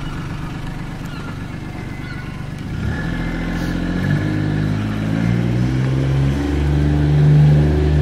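Motor engine running close by, growing louder about three seconds in and rising in pitch in steps, like a vehicle pulling away and speeding up.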